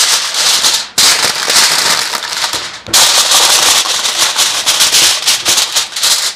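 Aluminium foil crinkling and crackling as hands press and crimp it over the rim of a glass baking dish. It comes in three loud spells with brief breaks about one second and three seconds in.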